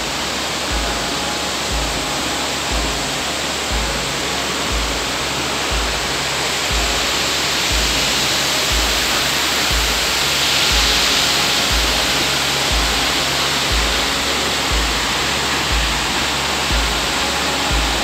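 Steady rush of a tall waterfall, heard as an even roar of falling water. Background music runs underneath, with a low beat about once a second.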